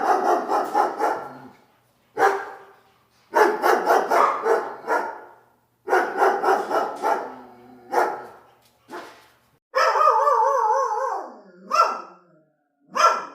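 Quick yapping barks in groups of several, with short silences between the groups. About ten seconds in comes a long wavering whine, followed by two short barks near the end.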